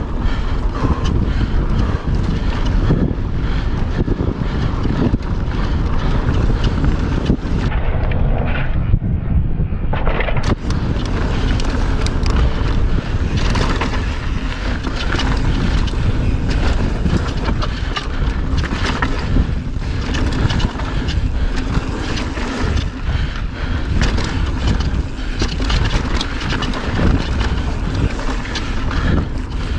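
Mountain bike (a Pivot Firebird 29) ridden fast down dirt singletrack: tyre roar and a continual clatter of small rattles from the bike over rough ground, under heavy wind noise on the camera microphone. The hiss eases briefly about eight seconds in.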